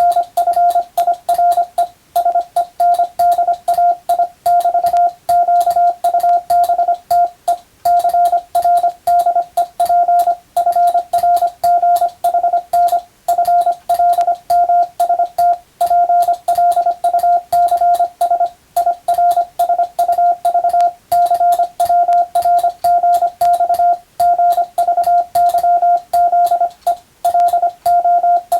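Morse code (CW) tone from English-text telegram practice: a single steady mid-pitched beep keyed on and off in rapid dots and dashes, with a brief pause every two to three seconds between words.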